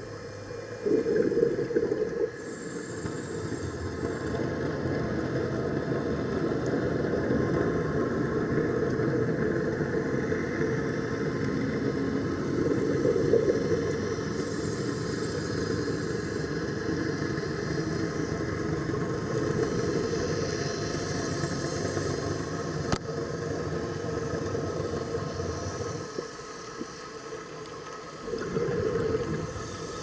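Scuba diver breathing through a regulator underwater: short hissing inhalations alternate with long exhalations of bubbling noise, a cycle repeating every several seconds.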